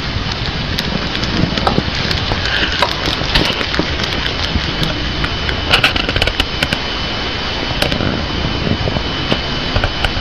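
A hamster crunching on a piece of bok choy: a scattered run of small crisp clicks, thickest in the first half, over a loud steady rushing background noise.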